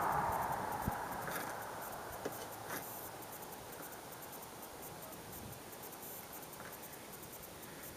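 Faint scratching and scattered small ticks of hand work scraping flesh off a raw sheep hide. A louder rushing noise dies away over the first two seconds.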